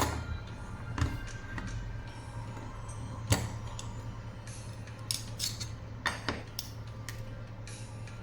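Small sharp clicks and taps of metal parts and tools as a titanium folding knife is taken apart, about half a dozen, the loudest a little past three seconds in, over soft background music and a low steady hum.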